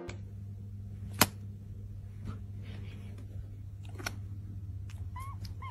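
A kitten gives two short, high mews near the end, over a low steady hum. There is a sharp click about a second in and a softer one about four seconds in.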